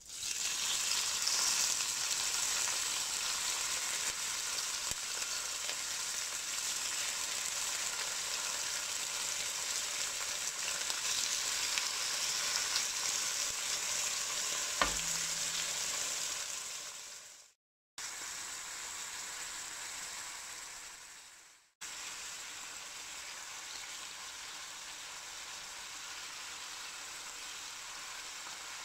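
Thin-sliced beef short ribs, marinated with scallion, sizzling in hot oil in a wok; the sizzle starts as the meat goes in and runs steadily. It cuts out twice briefly past the middle, and there is a single sharp click about halfway.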